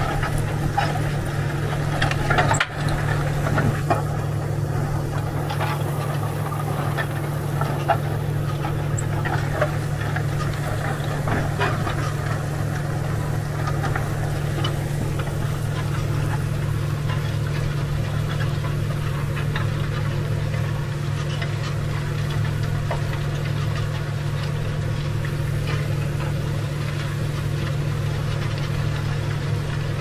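Tractor engine running steadily while pulling a plough through the soil, heard from inside the cab as a constant drone. One sharp knock comes about two and a half seconds in.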